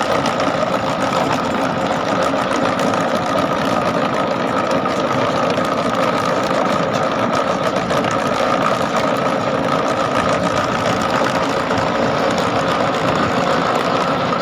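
Tractor diesel engine running steadily under load, powering a tractor-mounted trencher whose rotor is cutting a trench through dry soil.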